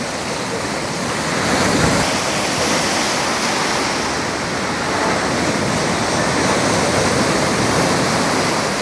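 Ocean surf: small waves breaking and white water rushing through the shallows in a steady roar, which grows a little louder about two seconds in.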